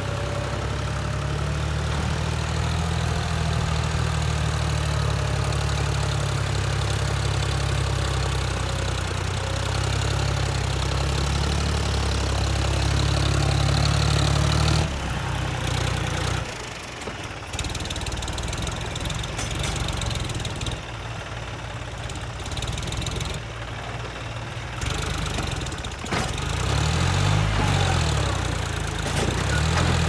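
Diesel engine of a JCB 3DX backhoe loader running steadily at a constant pitch, the sound changing abruptly about halfway through. In the last few seconds the engine note swings up and down in pitch as the machine works.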